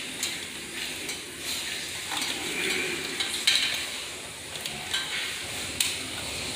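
Metal parts and wiring being handled at an electrical breaker panel: light scraping and rattling with a few sharp clicks, the loudest about three and a half seconds in and again near six seconds.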